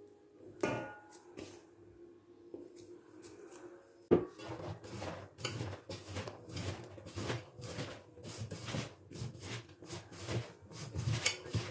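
Dry gram flour tipped from a steel bowl onto beetroot strips in a stainless steel pot, then a hand tossing them together: irregular dry rubbing and scraping strokes against the pot, with a sharp knock on the metal about four seconds in.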